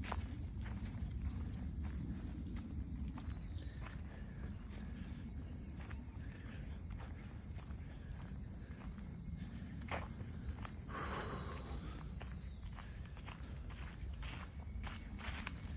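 A steady, high-pitched insect drone, with footsteps and small knocks on a forest trail.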